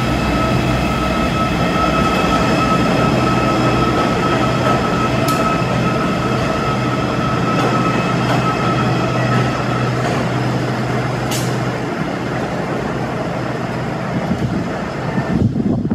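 MTA R255 locomotive HL002 running as it moves away along the elevated subway track: a steady engine hum with held tones that fades after about twelve seconds, and a couple of sharp clicks from its wheels on the rails.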